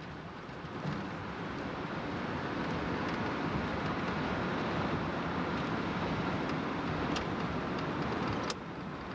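Steady road and wind noise of a car travelling at highway speed, heard from inside the car. The noise drops off abruptly near the end.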